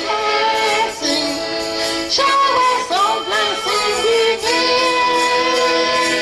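Accordion playing a slow tune in long held, sustained notes, with a brief run of quicker ornamented notes about three seconds in.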